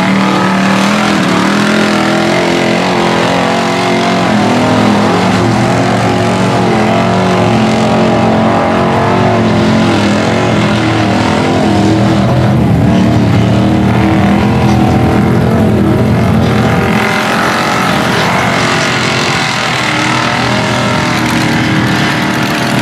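Lifted 4x4 mud truck's engine revving hard, rising and falling in pitch again and again as its big tires churn through deep mud.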